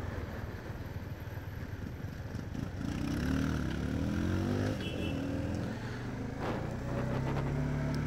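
Bajaj Dominar 400's single-cylinder engine running, its revs rising and falling a few times about three to five seconds in, then holding steady near the end.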